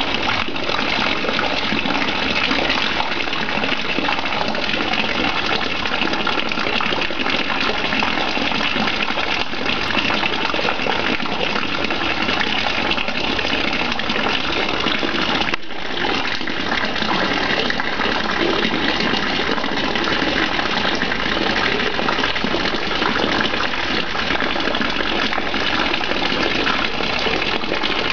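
A thin stream of water falling steadily into a koi pond, a constant splashing gush.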